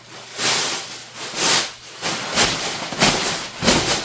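Repeated bursts of rustling and scraping, about five in four seconds, as things are handled while a refrigerator is being emptied.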